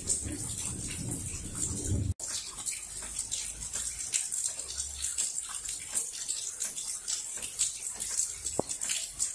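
Heavy rain: a steady hiss with many close drips and splashes. A low rumble of thunder runs under it for the first two seconds and stops abruptly.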